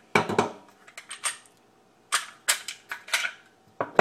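Glock 30 pistol being field-stripped: a series of sharp metallic clicks and clacks in quick clusters as the slide is worked and taken off the frame.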